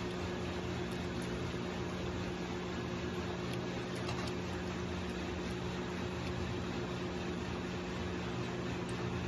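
Steady machine hum with a constant low tone and its overtone over a bed of even noise, as from a fan or air-conditioning unit running, with a few faint light clicks about four seconds in.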